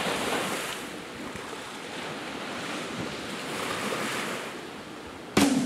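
Small waves washing onto a sandy beach, a steady hiss of surf that swells and eases twice. About five seconds in, plucked guitar music comes in sharply and much louder.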